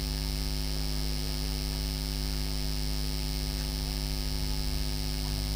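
Steady electrical mains hum, an unchanging low drone with a stack of evenly spaced overtones.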